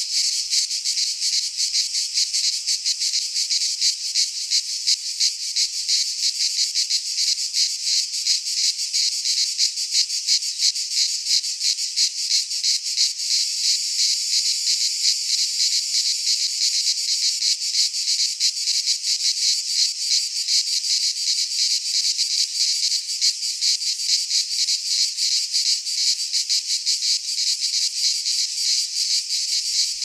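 Cicadas buzzing: a steady, high-pitched drone with a fast flutter in it, going on without a break.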